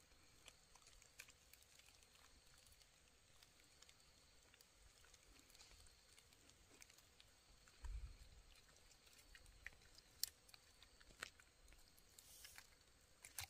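Near silence: faint scattered clicks and ticks, with a brief low rumble about eight seconds in.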